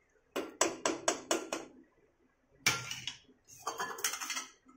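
Steel ladle knocking and scraping against a terracotta clay cooking pot while stirring a watery greens-and-dal mixture: a quick run of about six clinks, a single sharp knock around the middle, then another cluster of clinks near the end.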